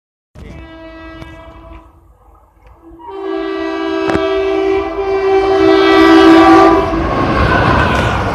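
Express train's locomotive horn sounding a short blast, then a longer, louder one of about four seconds. As the horn ends, the rushing noise of the train coming through at speed swells up.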